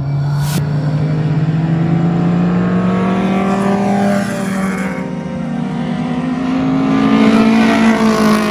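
Mk2 Ford Cortina race car's engine accelerating hard on track, its pitch climbing steadily. It eases off briefly around the middle, then climbs again to its loudest near the end.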